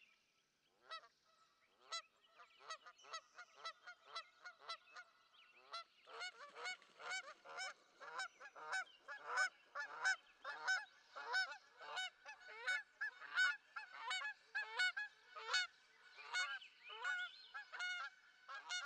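Geese honking, many repeated calls, scattered at first and then coming thick and faster from about six seconds in.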